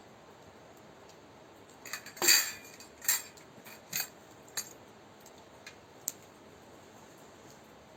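A handful of short metallic clinks and knocks, like utensils on camp cookware: the first, about two seconds in, is the loudest, and five or six lighter ones follow over the next four seconds.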